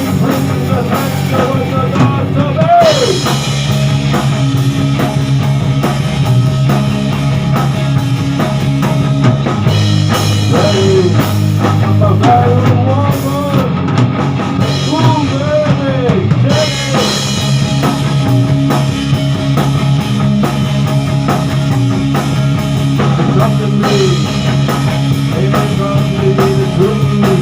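Rock band playing a song on drum kit and guitar, steady and loud.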